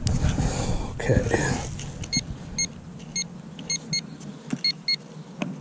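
Handheld metal-detecting pinpointer giving short, high electronic beeps as it is probed into a freshly dug hole, signalling a metal target in the soil. About six beeps come from about two seconds in, some in quick pairs, after a moment of soil being scraped.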